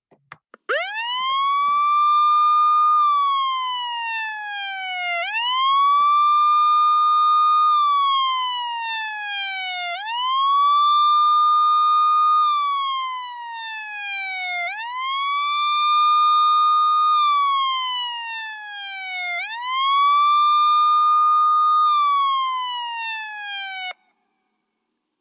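Emergency vehicle siren sounding a slow wail: five cycles, each rising quickly, holding briefly, then falling slowly, about every four and a half seconds. It cuts off suddenly near the end.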